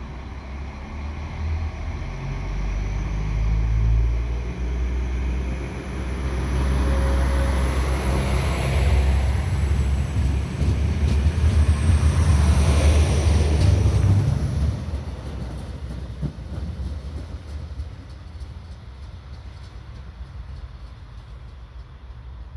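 Alstom Coradia LINT 41 diesel multiple unit pulling away from a stop, its diesel engines running up under load with a deep rumble. The sound builds as the railcar gathers speed and draws alongside, is loudest as it passes a little past halfway, then falls away quickly as it moves off.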